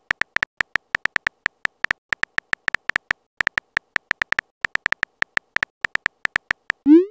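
Simulated phone-keyboard typing sound effect: short, sharp clicks, several a second at an uneven pace, one per letter typed. At the very end a rising swoop begins, the app's message-sent sound.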